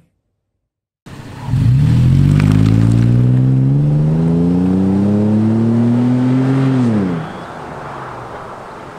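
Toyota 4Runner's 4.0-litre V6 heard through a Borla S-Type stainless cat-back exhaust, pulling under throttle with its note climbing slowly in pitch for about five seconds. About seven seconds in the throttle is lifted and the note drops away, leaving a quieter outdoor background.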